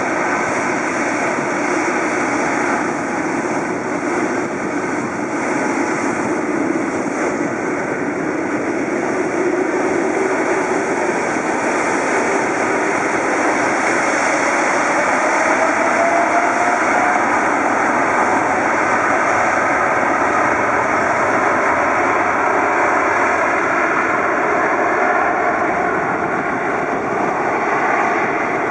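The four GEnx turbofan engines of a Boeing 747-8 running with steady jet noise. From about a third of the way in, a whine slowly rises in pitch as the engines spool up toward takeoff thrust.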